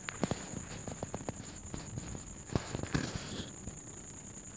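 Small sharp clicks and taps as fingers press smartphone flex-cable connectors onto their sockets on the mainboard and handle the plastic parts: a quick run of them in the first second or so and a few more about three seconds in.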